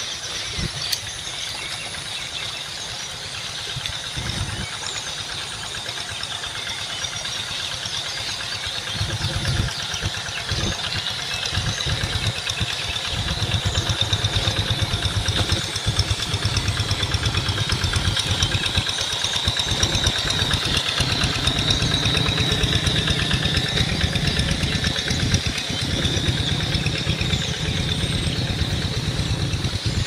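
A low engine-like rumble that grows louder from about nine seconds in, over a steady high-pitched hum.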